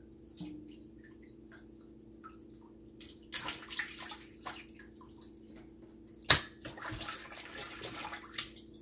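Hands rinsing raw chicken thighs in a sink of water, white vinegar and salt: intermittent splashing and sloshing that starts about three seconds in, with one louder splash about six seconds in. A steady low hum runs underneath.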